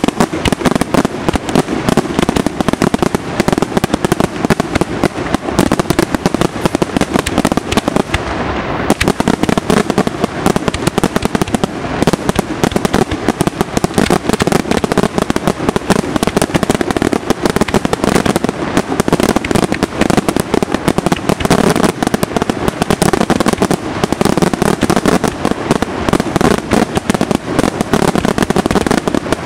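Aerial fireworks display: a dense, near-continuous barrage of shell bursts and crackling, with a brief let-up about eight seconds in.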